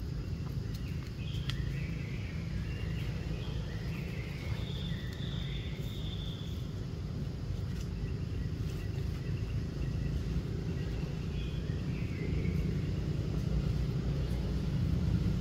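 Outdoor background noise: a steady low rumble with faint, high chirps now and then.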